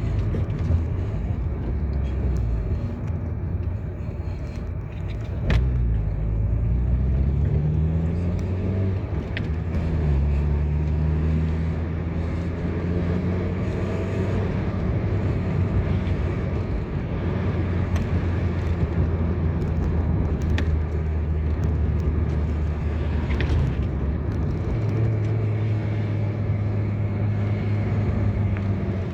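A car being driven on a road, with a steady low rumble. The engine note rises twice as it accelerates through the gears, then holds steady at cruising speed. There are a few brief knocks along the way.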